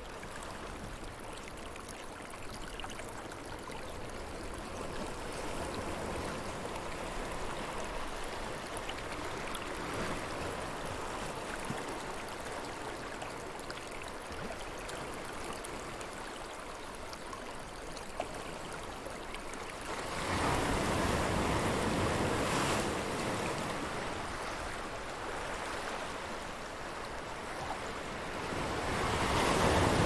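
Ocean surf washing against a black lava-rock shore, a steady rush of water with louder surges as waves break, about two-thirds of the way in and again near the end.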